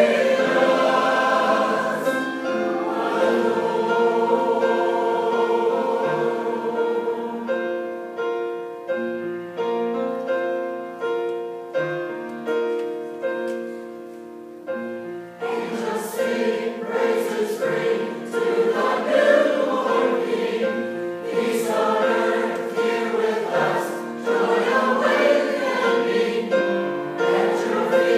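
Church choir singing a cantata anthem with piano accompaniment. The music softens in the middle, then swells back louder a little past halfway.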